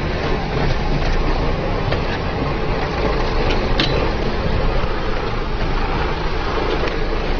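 A heavy vehicle running, with a steady rumble and wind noise. There is a sharp click about halfway through.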